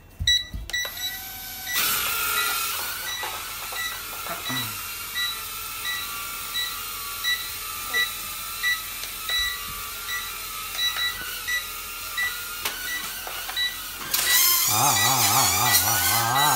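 Potensic A20W mini quadcopter's small ducted propellers whirring steadily in flight, rising in level about two seconds in, with a short high beep repeating about every half-second to second over it. Near the end a person's wavering 'aaah' voice cuts in over the drone.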